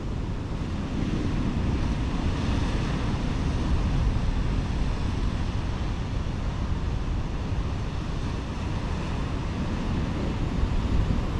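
Wind buffeting the microphone, a steady flickering rumble, over the hiss of sea surf washing on the rocks.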